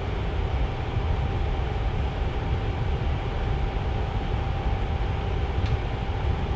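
Tower fan running steadily: an even rush of air with a deep hum underneath and a faint steady whine from the motor.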